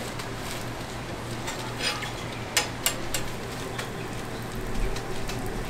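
Hotteok dough balls frying in oil on a flat griddle: a steady sizzle with scattered small crackles over a low hum. Three sharp clicks come in quick succession about two and a half seconds in.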